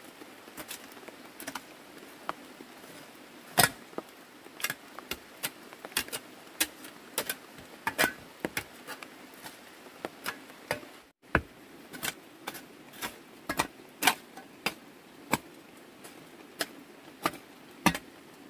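Small metal hand hoe chopping and scraping into a dirt floor, giving irregular sharp knocks about one or two a second.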